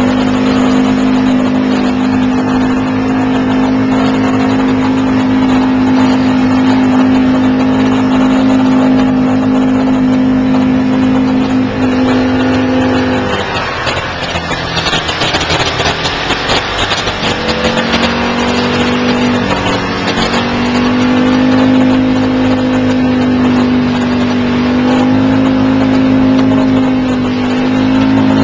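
Off-road vehicle engine running at steady high revs while driving through muddy floodwater. About halfway through the engine eases off and a loud rush of splashing water takes over for a few seconds. The engine then picks up again, dips once briefly and settles back to steady revs.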